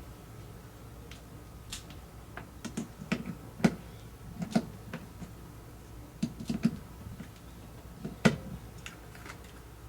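Hand rivet gun being worked on aluminium window hardware: irregular clicks and metallic snaps as the handles are squeezed, with two sharper snaps at about three and a half and eight seconds in.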